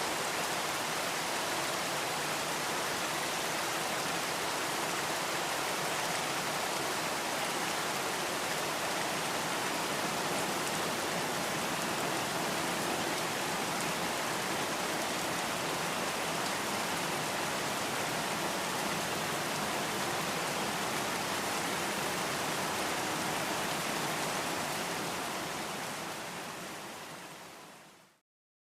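Light rain falling: a steady, even hiss of drops that fades out over the last few seconds to silence.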